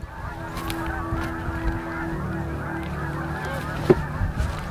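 A large flock of geese honking, many calls overlapping continuously, over a steady low hum, with a sharp click about four seconds in.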